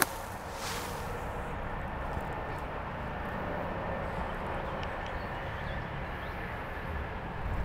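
Steady, distant engine hum.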